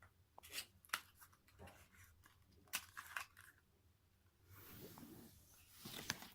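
Small cardboard product box being opened by hand: a few faint scrapes and clicks of the card, then a longer rustle and a sharp click near the end.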